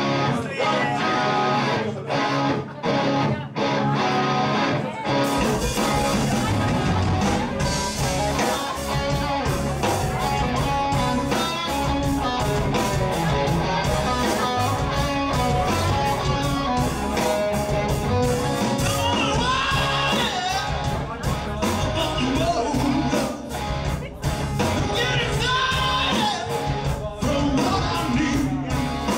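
Live rock band playing: a strummed electric guitar on its own, then drums and bass come in about five seconds in, and a male singer starts at the microphone around twenty seconds in.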